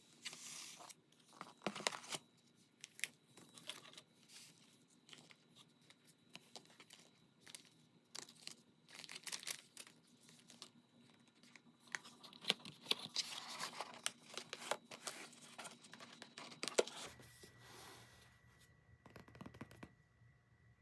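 Packaging being handled during an unboxing: irregular bursts of crinkling and rustling, busiest near the middle and dying down a few seconds before the end.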